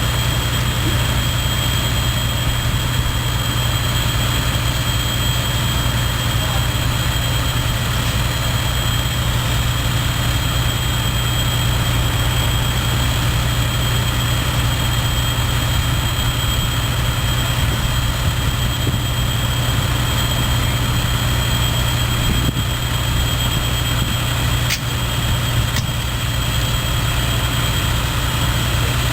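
A heavy engine idling steadily, a low even hum with no change in pitch.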